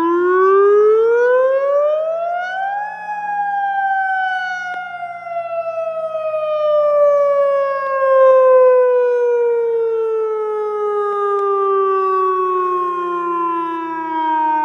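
Tornado warning siren sounding a wail during a test: its pitch climbs for about three seconds, then slides slowly back down over the next eleven or so.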